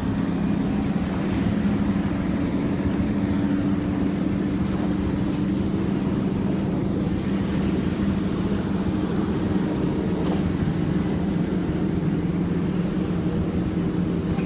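Motorboat engine running steadily at speed, with a constant hum under the rush of water and wind.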